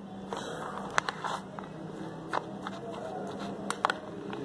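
Metal spoon stirring chopped onion, tomato and boiled chickpeas in a plastic bowl: a soft mixing rustle with a few sharp clicks of the spoon against the bowl.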